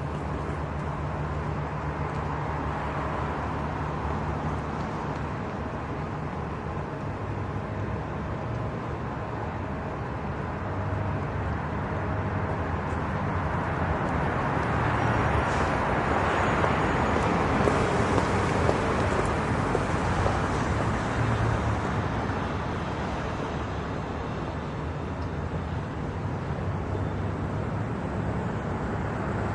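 Light road traffic: a steady hum of passing cars that swells as a vehicle goes by close a little past the middle, then fades back.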